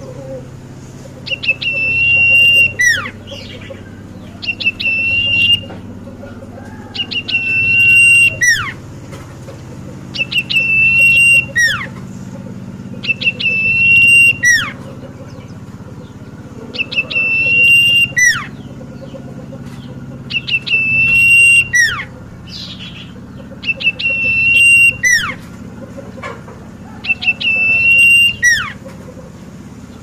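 Common iora (cipoh) singing one clear whistled phrase over and over: a few short notes, a long steady whistle, then a fast falling whistle, repeated roughly every three seconds.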